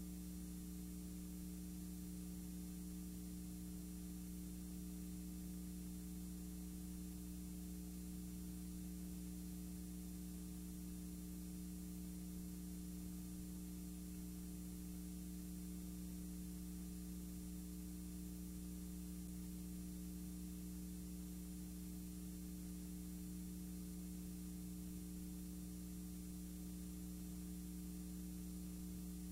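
Steady electrical hum with an even high hiss and nothing else: the noise floor of a blank recording.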